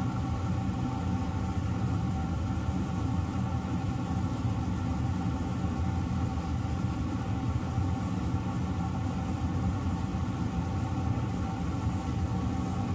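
A machine running steadily: a constant low rumble with a steady hum that does not change.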